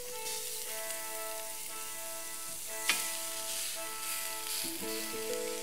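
Pork ribs sizzling as they sear on a hot ridged cast-iron grill pan, a steady frying hiss, with one short knock about three seconds in. Background music of sustained notes plays throughout.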